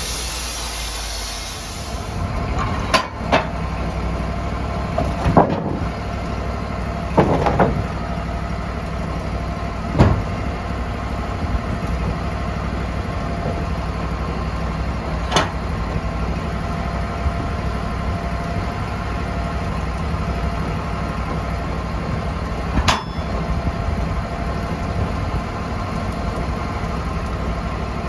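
Sawmill engine running steadily, with a hiss fading out in the first couple of seconds and a handful of sharp knocks and clanks scattered through.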